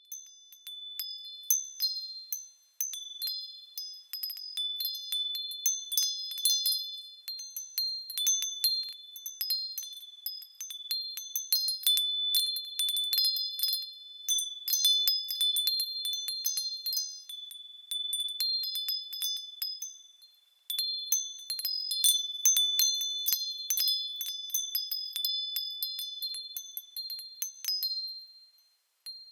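Wind chimes ringing: many high-pitched tones struck at irregular intervals and overlapping, with brief lulls about three seconds in, around twenty seconds in, and near the end.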